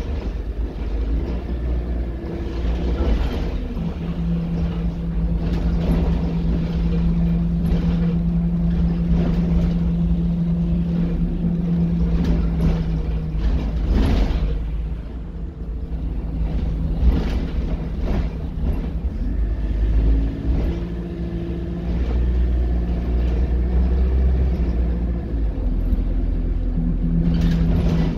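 Alexander Dennis Enviro200 single-deck bus under way, heard from inside: diesel engine running with the hum of its Allison automatic gearbox. A steady hum sets in about four seconds in, holds for some ten seconds, then breaks off and comes back at other pitches as the bus changes speed. Knocks and rattles from the bus body come throughout.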